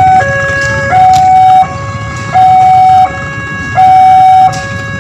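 Railway level-crossing warning alarm sounding a loud electronic two-tone signal, alternating high and low about every 0.7 s, warning of an approaching train. A low rumble runs underneath.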